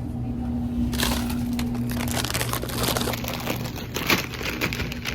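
A crinkly snack bag being handled and crumpled, a dense crackling that starts about a second in, over a steady low hum.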